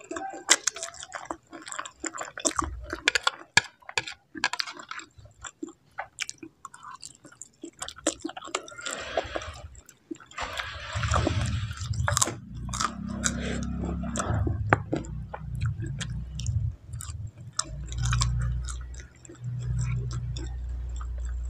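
Close-miked chewing of a mouthful of spicy instant noodles, with many wet mouth clicks and smacks. About halfway through it turns into denser, lower, muffled chewing.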